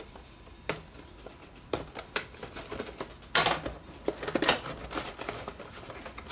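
Plastic packaging of a toy twist puzzle being handled: scattered clicks and crinkling, with the loudest rustles about three and a half and four and a half seconds in.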